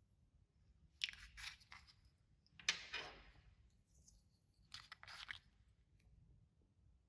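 Clear slime with glitter mixed in, being squeezed and stretched by hand. It gives three short bursts of crackling, sticky popping: about a second in, around three seconds, and near five seconds.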